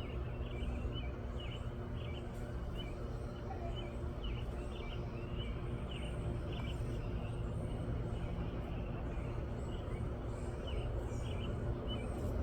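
Small birds giving short, high chirps over and over, scattered throughout, over a steady low rumble.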